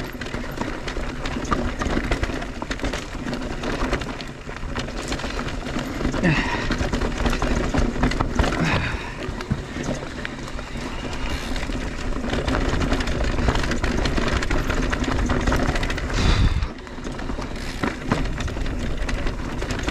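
Riding a 2021 Mondraker Crafty Carbon R electric mountain bike down a trail: a steady rushing noise with constant small rattles and knocks from the bike over rough ground, and a loud low thump about sixteen seconds in.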